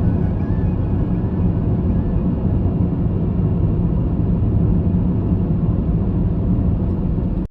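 Steady rumble of a car driving on a road, tyre and engine noise heard from on board, cutting off abruptly at the end.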